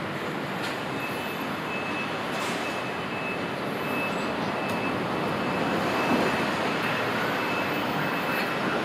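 Steady city street noise of passing traffic, with a faint high tone coming and going through it.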